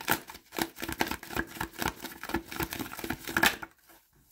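A deck of tarot cards being shuffled by hand: a quick run of card-on-card snaps, several a second, stopping abruptly near the end.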